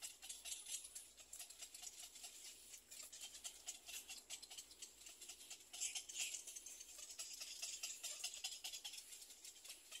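Little egret chicks in the nest giving a rapid, dry clicking chatter, getting louder about six seconds in.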